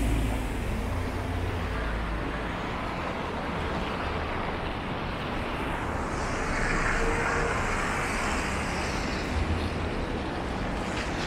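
City street traffic: a bus's low engine rumble easing as it pulls away, then the steady noise of cars on a wet, slushy road, with a brighter passing hiss in the middle.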